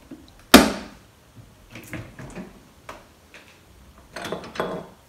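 Kitchen cabinet and household objects being handled. A loud sharp knock about half a second in rings briefly, followed by lighter knocks and clatter, busier near the end.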